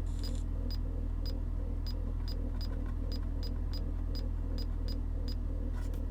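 BMW X3 running, a steady low hum, with faint, fairly regular ticking about twice a second.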